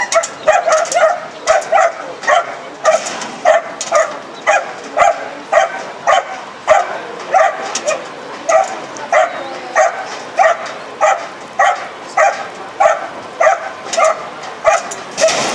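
Racing greyhound barking over and over, nearly two barks a second, in an even rhythm.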